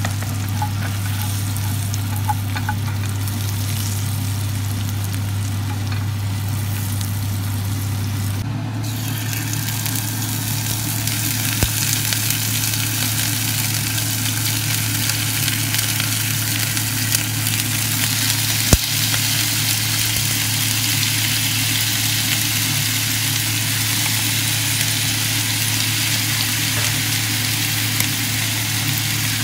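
Chicken livers sizzling in a hot oiled grill pan as they are laid in, over the steady hum of a kitchen extractor hood. The sizzle grows louder about a third of the way in as more liver goes into the pan, with a few sharp clicks.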